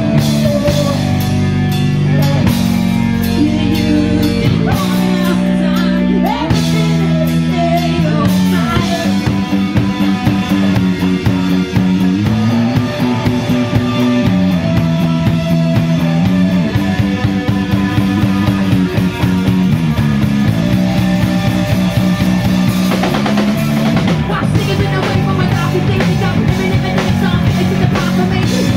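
Live rock band playing loud: a singer's vocal over electric guitar, bass guitar and a drum kit, with the drumming getting busier about eight seconds in.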